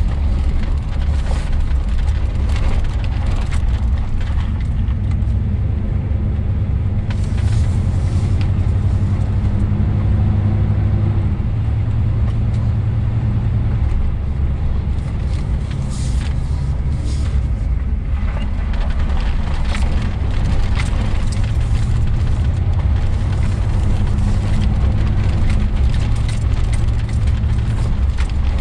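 GM three-quarter-ton pickup driving in four-wheel drive, heard from inside the cab: a steady engine and drivetrain drone over tyre and road noise. The drone's pitch shifts up and down a few times as the speed changes.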